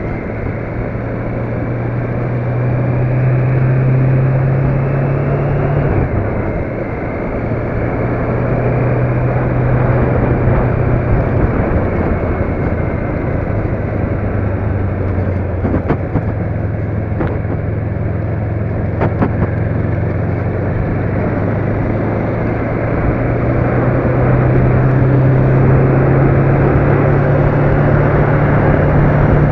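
A motor vehicle's engine running on the move, over steady road noise. The engine note drops sharply about six seconds in and climbs slowly again toward the end.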